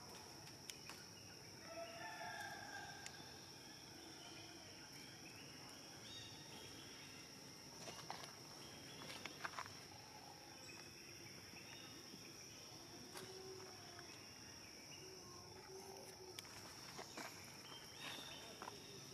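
Quiet forest ambience: a steady high-pitched insect drone, with faint scattered bird calls and a few light clicks and taps, a small cluster of them about nine seconds in.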